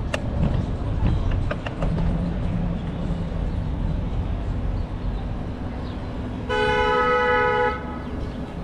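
A vehicle horn sounds once, a single blast of about a second and a half, over a steady low rumble of street traffic and wind.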